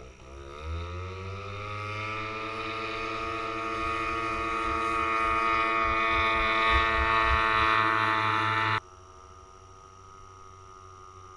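Walkerjet paramotor engine throttling up for takeoff, its pitch climbing over the first two seconds and then running steadily at full power, growing louder as it passes close. About nine seconds in, the sound drops abruptly to a much quieter, distant engine drone.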